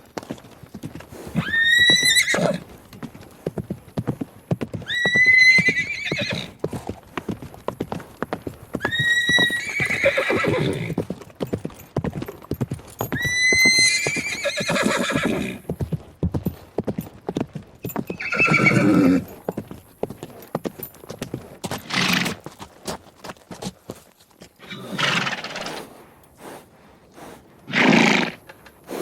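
Horse whinnying four times, about every four seconds, over a steady clatter of hooves. In the second half come several short, breathy snorts.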